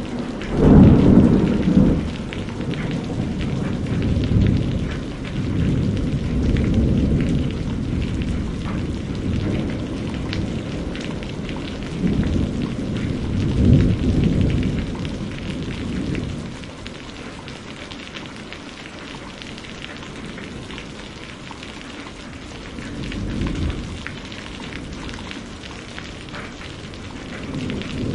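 Thunderstorm recording: steady rain with rolling thunder. A loud rumble comes right at the start, another swells about halfway through, a weaker one follows later, and thunder builds again near the end.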